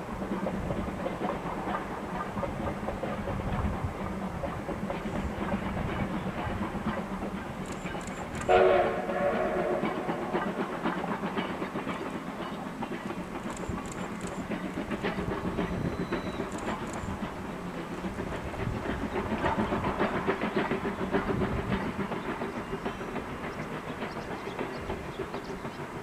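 C11 steam tank locomotive running past with a steady rumble and clatter, sounding one short whistle blast about eight and a half seconds in that trails off in an echo.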